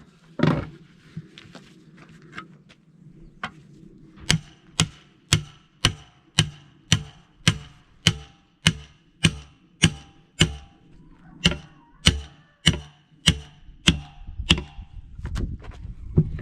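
A hammer striking steel to break a truck tyre's bead off its split rim: a few scattered knocks, then a steady run of about twenty ringing metallic blows, roughly two a second. A rougher scraping rumble comes near the end.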